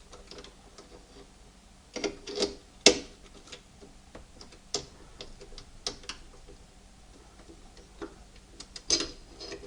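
Scattered small clicks and light clatter of an Imperial M50 typewriter's ribbon spools and metal parts being handled, with a few louder clicks about two to three seconds in and again near the end.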